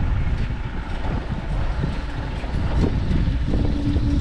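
Homemade chain-driven tube rolling machine running as a length of metal tube is fed through its rollers and bent into a curve, with wind rumbling on the microphone. A steady hum comes in about three and a half seconds in.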